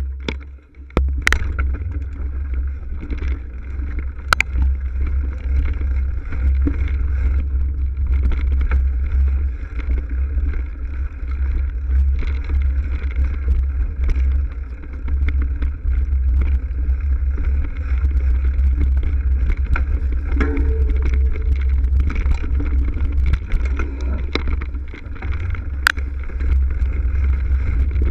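Mountain bike riding over a leaf-covered dirt trail, heard through a GoPro microphone: a heavy, steady rumble of wind buffeting and frame vibration, with tyre crunch on leaves and occasional sharp knocks as the bike hits bumps. The noise dips briefly about a second in.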